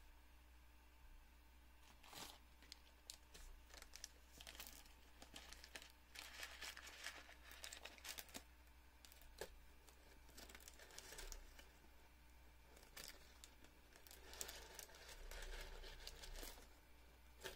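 Faint rustling and crinkling of a cord being handled and pulled while a prayer-rope knot is tied, with small clicks and scrapes. These come in spurts from about two seconds in until near the end.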